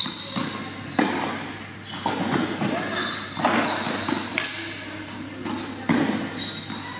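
Tennis balls struck by rackets and bouncing on a hard court, sharp pops about once a second with a hall echo, among short high squeaks of shoes on the court surface.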